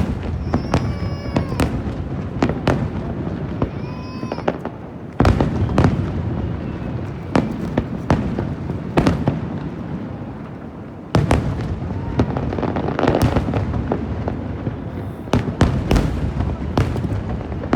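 Aerial fireworks display: a steady run of shell bursts and bangs, with two much heavier booms about five and eleven seconds in.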